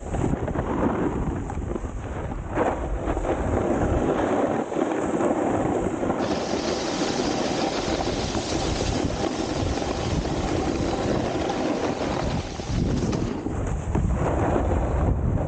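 Snowboard scraping and chattering over icy, hard-packed snow, with wind buffeting the microphone. The scraping hiss turns brighter and harsher from about six seconds in until about thirteen seconds.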